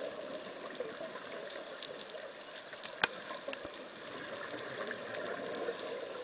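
Underwater ambience picked up by a camera in a waterproof housing: a steady hiss with scattered faint clicks, and one sharp click about three seconds in.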